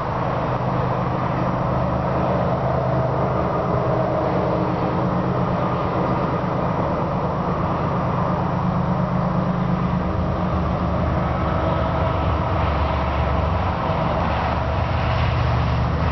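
Steady low drone of the approaching GE ES44AC diesel locomotives' GEVO-12 engines working ahead of a loaded coal train, with a deeper note coming in about twelve seconds in.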